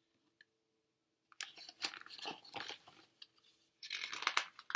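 Paper pages of a picture book being handled and turned, crinkling and rustling in a run of irregular crackles that start about a second and a half in.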